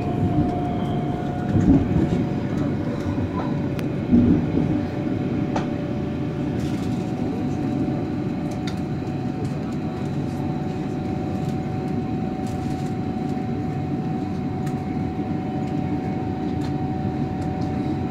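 Berlin S-Bahn electric train heard from inside the carriage while running: a steady rumble of wheels on rail with a motor whine that creeps slightly higher, and two heavier bumps about two and four seconds in.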